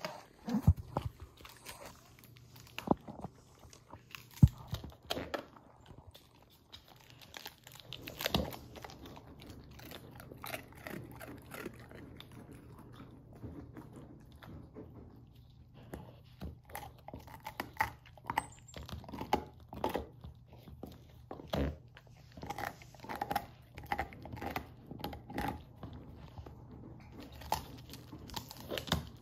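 Great Pyrenees puppy gnawing on a huge beef bone: irregular crunching and scraping of teeth on bone, with a few louder sharp cracks in the first five seconds and busier chewing in the second half.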